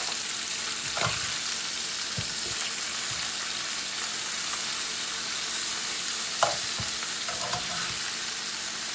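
Chicken pieces and chicken livers sizzling steadily as they brown in a pot. A few short knocks of a utensil against the pot as the pieces are turned, the sharpest about six and a half seconds in.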